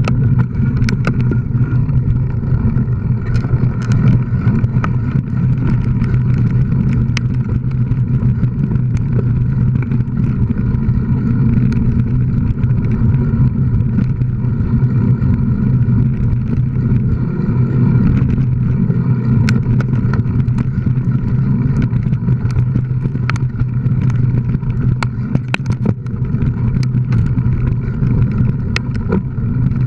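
Steady rumble and rattle of a mountain bike riding a dirt trail, picked up by a camera mounted on the bike, with sharp clicks scattered throughout.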